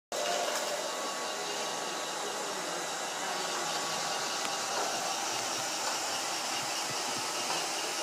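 Roomba robot vacuum cleaner running on a tiled floor: a steady whirring hiss of its suction fan and brushes, with a few faint low knocks near the end.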